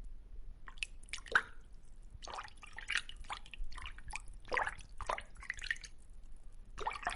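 Irregular water drips and small splashes, a few every second, some with a short pitched plink.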